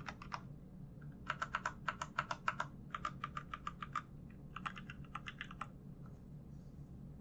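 Typing on a Royal Kludge RK61 mechanical keyboard with Gateron Brown switches: quick runs of key clacks, with a brief pause about a second in, that thin out to a few faint taps after about five and a half seconds.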